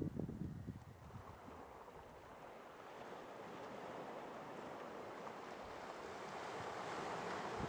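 Wind buffeting the microphone for about the first second, then a steady wash of surf noise that slowly builds toward the end.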